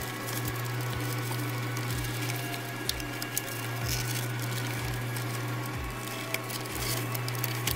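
Plastic center-console trim around a gear shifter being pried up and handled: scattered light clicks and rubbing over a steady low hum.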